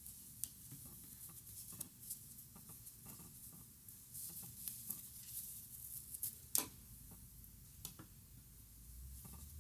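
Faint crocheting sounds: a crochet hook working cotton yarn, with soft irregular rustles and small clicks, and one sharper click about two-thirds of the way through.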